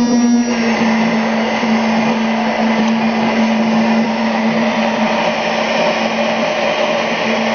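Excelvan 500 W DC hand blender running at a steady speed with its stick blade in a beaker of chopped apples, blending them to a puree. The motor's steady hum becomes noisier and more churning about half a second in.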